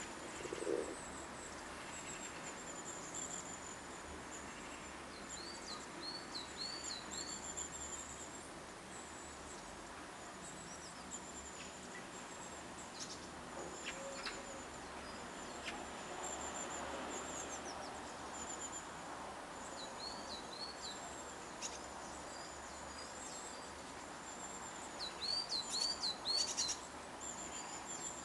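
Small garden songbirds calling: thin high notes again and again, and a few short runs of three or four quick slurred notes, the loudest run near the end. A brief low sound just under a second in.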